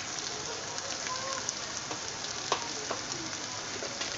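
Browned onions, green chillies and garlic paste frying in hot oil in a steel pot: a steady sizzle with a few small pops.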